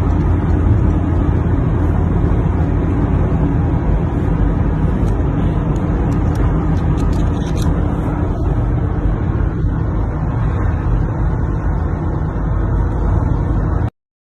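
Steady, loud, low rumbling noise that cuts off abruptly near the end.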